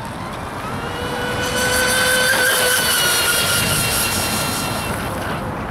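Triton RC speedboat's motor whining at full speed, with the hiss of spray off the hull. The pitch holds steady, then sags a little and the sound eases toward the end as the boat runs past.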